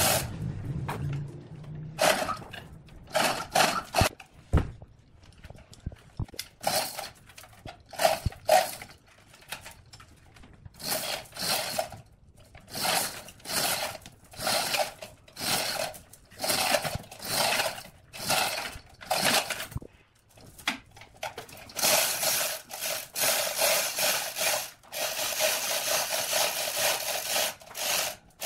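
Wood being sanded by hand: quick scratchy back-and-forth strokes of abrasive on a large turned wooden vase, about two a second. The strokes come in short irregular runs at first and become nearly continuous about three-quarters of the way through.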